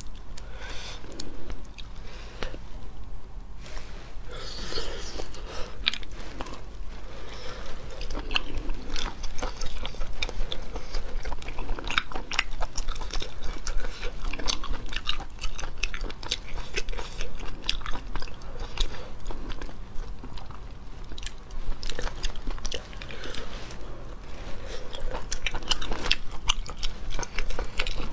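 Close-miked eating of sea snails in spicy sauce: a steady run of wet chewing and biting, with many short sharp clicks as the meat is pulled from the shells and eaten.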